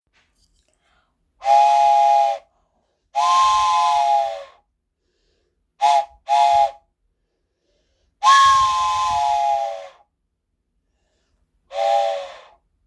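Toy steam-train whistle sounding six blasts: four longer ones of one to two seconds and a quick double toot in the middle. Each blast is a three-note chord with breathy hiss, and the two longest sag slightly in pitch as they fade.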